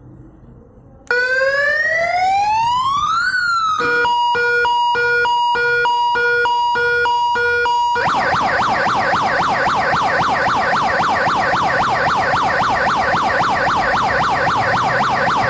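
Compact 4-in-1 electronic bike siren stepping through its tones. About a second in comes a rising wail that climbs for two seconds and then drops, then a two-tone beeping at about two beeps a second, and from about eight seconds in a fast up-and-down warble.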